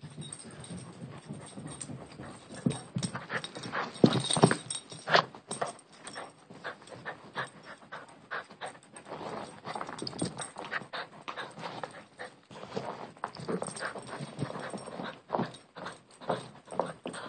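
Dog panting, with irregular clicks and knocks from its movement and the toy; the loudest knocks come about four to five seconds in.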